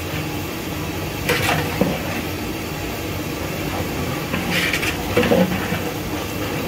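Sliced onions deep-frying in hot ghee in a large metal pot: a steady sizzle, stirred with a long metal ladle that scrapes and knocks against the pot about a second and a half in and again around four and a half to five and a half seconds in. The onions are well on their way to browning.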